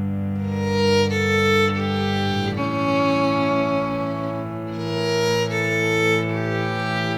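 Background music: slow bowed strings, a violin melody over held low notes.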